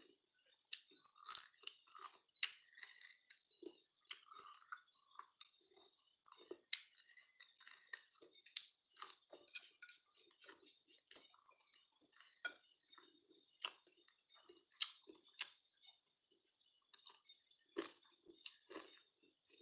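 A person chewing food close to the microphone: quiet, irregular mouth clicks and smacks, several a second.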